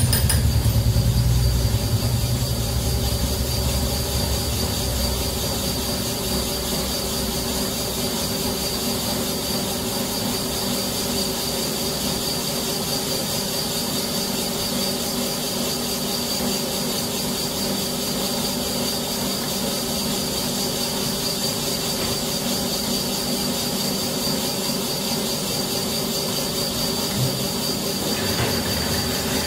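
Connecting-rod small-end bush boring machine running with a steady high-pitched whine over a steady hum. A deeper rumble in the first few seconds dies away.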